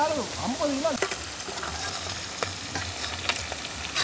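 Snakehead fish pieces sizzling in sesame oil on a large flat iron pan, a steady hiss of frying. Metal tongs click and scrape against the pan several times as the pieces are turned.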